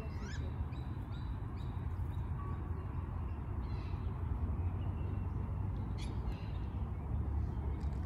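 A steady low rumble, like wind on the microphone, with a few faint bird calls over it, including a short rising whistle just after the start.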